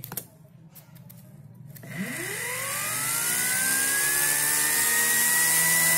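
A 250-volt universal blender motor run on 11 volts DC starting up about two seconds in: its whine climbs steeply in pitch, then levels off as it reaches speed, around 10,000 to 11,000 rpm, growing louder with a hiss above it.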